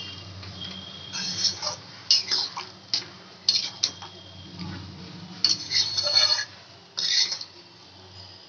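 A spatula scraping and knocking against the side of a metal kadai while stirring thick, sticky jujube pickle in jaggery syrup, in irregular strokes a second or so apart.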